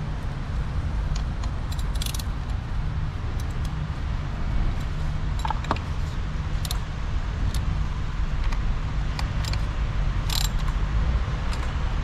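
Scattered, irregular light metallic clicks and clinks from a hand tool with a Torx T40 bit as the two coil-pack bolts are fitted and tightened, over a steady low rumble.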